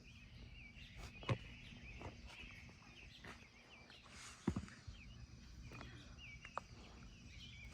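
Faint outdoor background with small birds chirping over and over, and a soft knock about a second in and another just past the middle.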